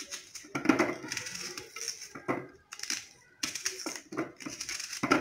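A kitchen knife cutting through a peeled raw onion held in the hand, with the pieces dropping into a plastic food-processor bowl: a run of short crunching cuts and light taps.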